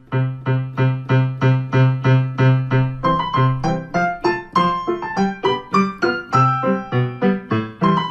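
Background keyboard music. A repeated low note sounds about two to three times a second, and about three seconds in a quicker melody of higher notes joins it.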